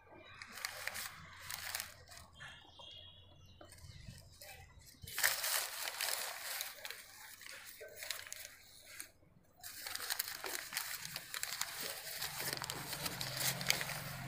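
Crumpled sheets of ruled paper rustling and crinkling as eggs are unwrapped from them by hand, mostly in long stretches from about five seconds in, with a brief break around nine seconds.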